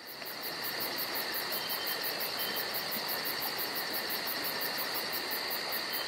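A steady chorus of insects outdoors: a high chirping that pulses about four times a second over an even hiss.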